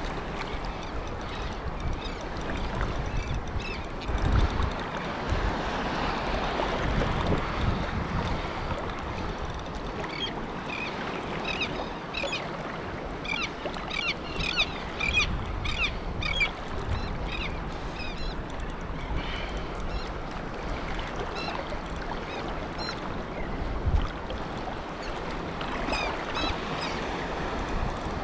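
Small waves lapping and sloshing in shallow surf, with wind rumbling on the microphone. A quick run of short high chirps comes through in the middle.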